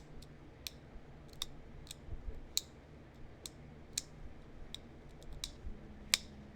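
Small, sharp clicks of stone being pressure-flaked: flakes snapping off the edge of a small heat-treated chert point, irregularly spaced about every half second, with one louder click about six seconds in.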